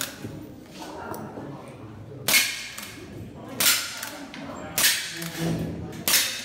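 CO2 lever-action air rifle firing four shots at a steady pace, about one and a quarter seconds apart.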